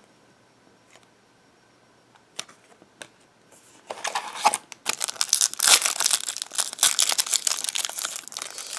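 A trading-card pack wrapper crinkling and tearing as the pack is opened by hand, starting about four seconds in after a quiet stretch with a couple of soft clicks.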